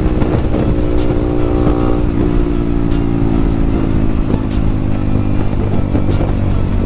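Yamaha MT-15's single-cylinder engine running through a loud aftermarket exhaust while riding. The engine note falls over the first couple of seconds as the revs drop, then holds steady.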